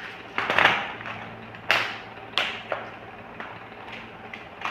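Hands handling a clear plastic bead organizer box: a short clatter about half a second in, then several sharp plastic clicks, the two loudest about a second and two seconds in, over a faint steady hum.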